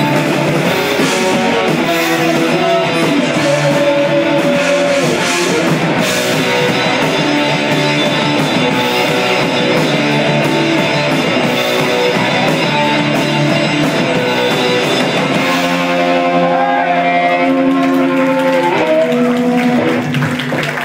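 Live rock band of electric guitar, bass guitar and drum kit playing loudly. About three-quarters of the way through, the cymbals drop out and the guitars ring out on held chords as the song ends.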